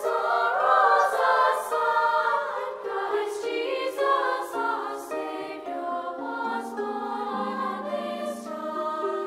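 Choir singing a Christmas carol, several voices moving through sustained notes.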